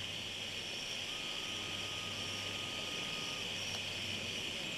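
A steady, high-pitched chorus of night insects such as crickets, with a low steady hum underneath.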